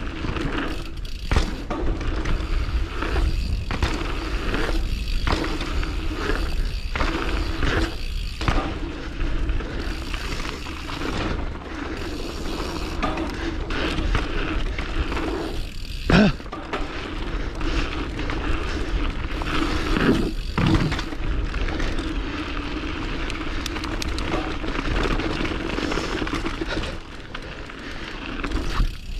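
Mountain bike rolling over a hard dirt trail, heard from the handlebars: steady tyre rumble and wind noise, with rattles from bumps and a sharp knock just past the middle.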